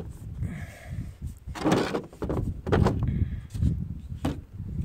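Several knocks and scrapes as a hand-held ammonite fossil stone is handled over a ribbed plastic pickup bed liner, over a steady low rumble.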